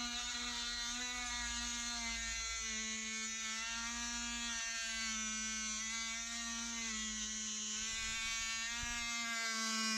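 Oscillating multi-tool running with a steady high buzz, its pitch wavering slightly as the blade cuts out a block of wood.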